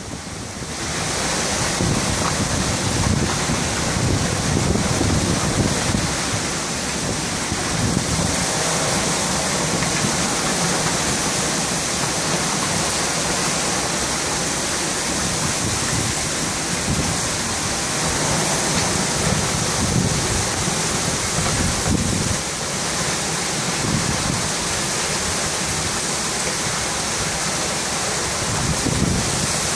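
Severe squall-line windstorm, 60–70 mph winds driving heavy rain: a steady loud rush of wind and rain, with irregular low gusts surging every few seconds.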